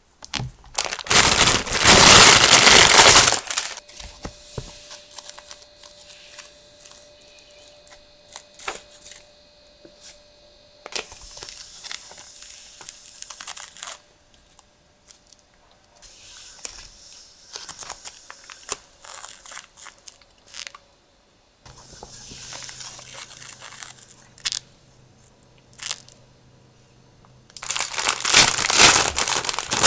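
Packaging being crinkled and torn open while stationery is unwrapped and handled: loud crinkling for the first few seconds and again near the end, with quieter taps and rustles in between.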